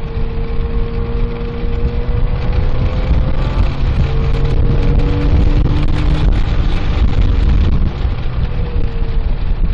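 Porsche 997.1 GT3's flat-six engine pulling under acceleration, heard from inside the cabin. Its pitch rises slowly over a heavy low rumble of wind and road noise.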